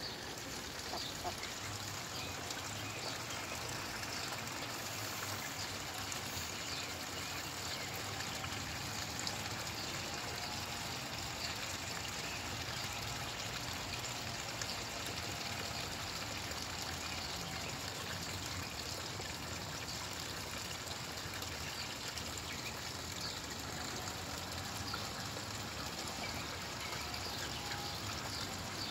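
Steady trickle of running water in a small garden pond, with now and then a small splash from Rouen ducks dabbling in the water.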